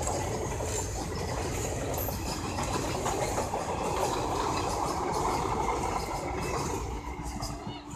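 ICF passenger coaches of an express train running past at close range, with a steady, dense noise of wheels on the rails. The noise eases near the end as the last coaches go by.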